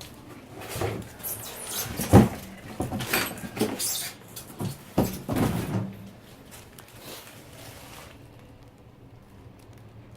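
Irregular rustling, scraping and knocking of objects being handled for about the first six seconds, with the loudest knock about two seconds in.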